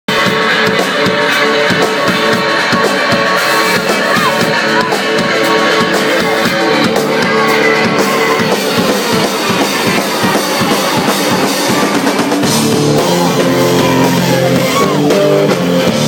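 Live electric blues band playing loudly: an electric guitar played with a slide, a few notes gliding up and down, over drums.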